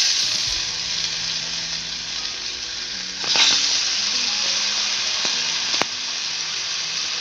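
Skewers of marinated mushroom tikka, onion and bell pepper sizzling in hot oil in a pan. The sizzle swells about three seconds in, and a single sharp click comes near the end.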